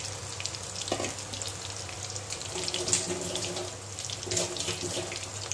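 Chicken pakoda pieces in batter deep-frying in hot oil in a steel kadai: a steady sizzle full of small crackles and pops, with a short knock about a second in.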